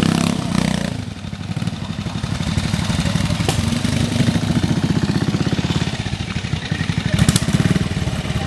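Vintage trial motorcycle engine running at low revs, its revs rising and falling with the throttle as the bike is ridden slowly over rough ground.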